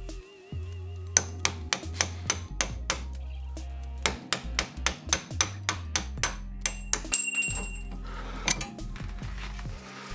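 Hammer blows on a steel drift driving the old bushing out of the eye of a 1970 Alfa Romeo GT Junior's front suspension arm: sharp metallic strikes about three a second in two quick runs, then another blow near the end.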